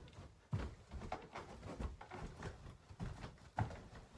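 Faint, irregular soft thumps and shuffles of a person moving across a carpeted floor.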